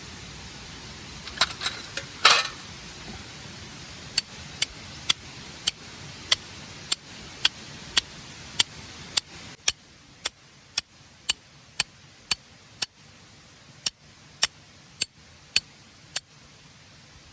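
A few short clatters, then sharp taps repeating evenly about twice a second for around twelve seconds before stopping.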